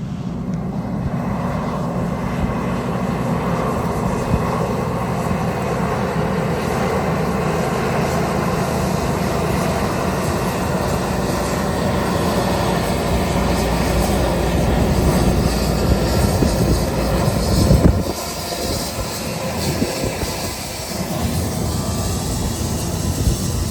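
Large farm tractor's diesel engine running under load while pulling an air drill, with a steady deep rumble. The rumble swells and then drops away abruptly about eighteen seconds in.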